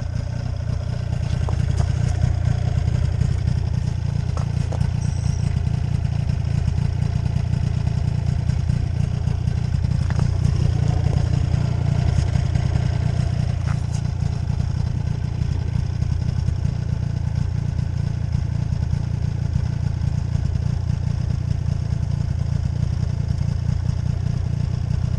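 Snowmobile engine idling steadily close by, with a few faint clicks over it.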